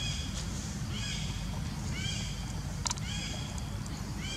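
An animal's short, high call, repeated about once a second, over a steady low rumble, with one sharp click about three seconds in.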